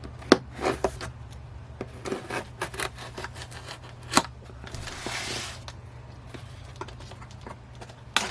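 Cardboard shipping box being opened by hand: scattered taps, knocks and rubbing of cardboard, with a short rasping scrape about five seconds in.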